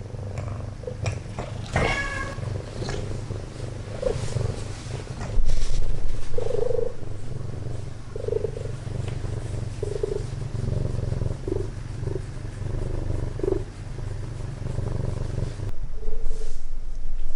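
A cat purring steadily and close up, with a short high mew about two seconds in and several brief soft sounds over the purr; the purring stops suddenly near the end.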